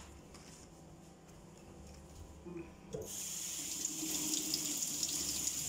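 Kitchen tap turned on about three seconds in, after a quiet start and a light knock. The water then runs steadily into a metal pot of cut squash pieces held in a stainless-steel sink, rinsing them.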